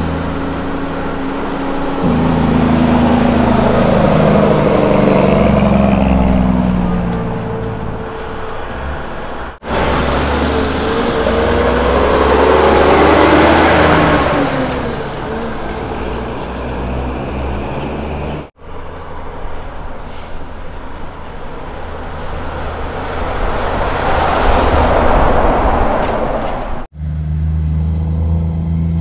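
Kenworth road trains' heavy diesel engines pulling away and passing close by, their engine note rising and falling as they work up through the gears. Several passes follow one another, broken by abrupt cuts.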